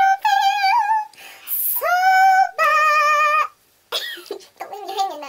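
A young woman's voice singing loud, high, drawn-out notes with vibrato, three held notes in a row, then breaking off into short laughing sounds about four seconds in.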